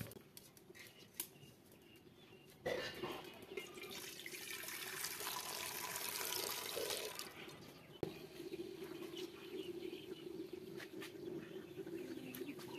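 Water poured in a stream into an aluminium cooking pot, a splashing hiss that starts suddenly about three seconds in and lasts some four seconds. A single knock follows near eight seconds, then a low steady hum.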